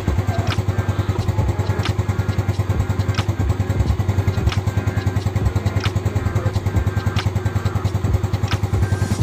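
Yamaha Mio Sporty scooter's small single-cylinder engine idling steadily with a fast, even pulse. A sharp click repeats about every second and a third over it.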